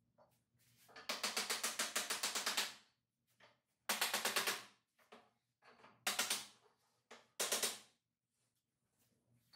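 Rapid light tapping on the wooden lattice door frame, about eight sharp taps a second, in four runs: a long one about a second in and shorter ones near the middle and toward the end.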